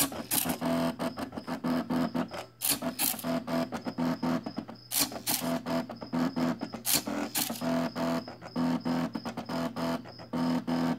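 Stepper motors of a homemade Arduino CNC pen plotter whining in short runs of steady low tones as the pen draws, with frequent small clicks and a few brief noisy bursts.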